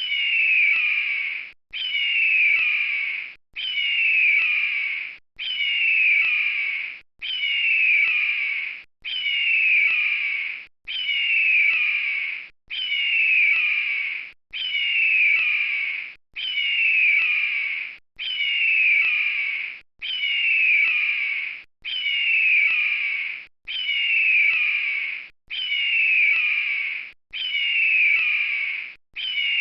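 Eagle call: a short burst of high, falling whistled notes, repeated identically about every two seconds as a looped recording, each repeat starting and cutting off abruptly.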